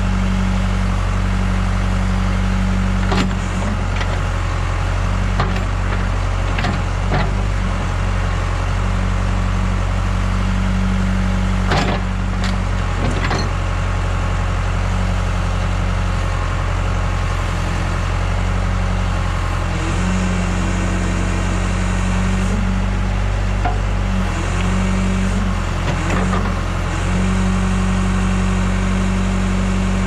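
John Deere 410B backhoe's diesel engine running steadily while the hydraulics work the boom and bucket, the engine note shifting slightly as the load changes. Several short knocks and clacks are heard, mostly in the first half.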